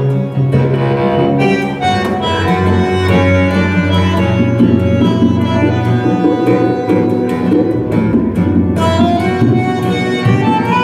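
Recorded music playing through AudioMachina loudspeakers driven by Einstein amplifiers, heard in the demo room: a shifting melody of sustained pitched notes over low bass lines, with frequent sharp attacks.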